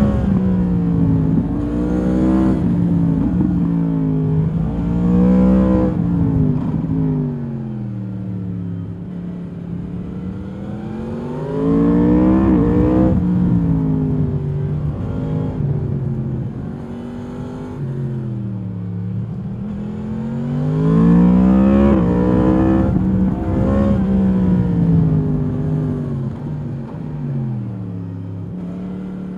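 2022 Yamaha MT-10's crossplane inline-four through its stock exhaust, heard from on board while riding. The engine note climbs under throttle and drops off as the bike slows, over and over, with two strong pulls about twelve and twenty-one seconds in.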